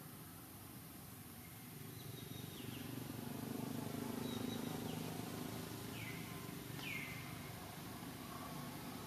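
Outdoor background noise with about four short, faint high chirps that fall in pitch, the last and clearest one about seven seconds in.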